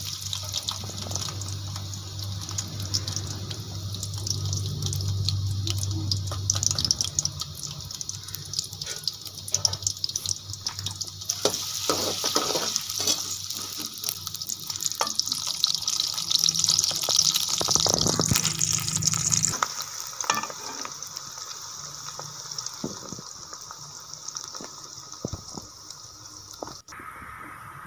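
Sliced onions sizzling in hot ghee in a pan, a dense crackle of fine pops. It grows louder in the middle and eases off about twenty seconds in.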